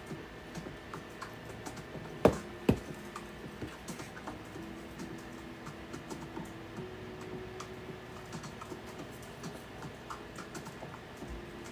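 Scattered light clicks and taps of small tools and parts being handled at a workbench, with two sharp knocks a little over two seconds in, over a faint steady hum.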